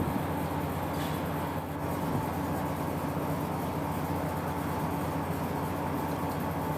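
A machine running steadily in the background, a low droning hum that holds an even pitch and level.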